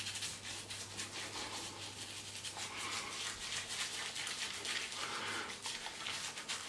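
Fingers scrubbing foaming cleanser through a wet, bristly beard: a rapid, scratchy rubbing of hand against stubble and lather.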